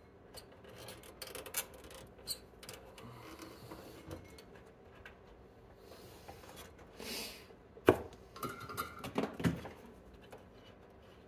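Small hand tools clicking, tapping and scraping against a circuit board as a stuck component's pins are worked loose. There is a short hiss about seven seconds in, then a sharp click, the loudest sound, and a run of smaller clicks.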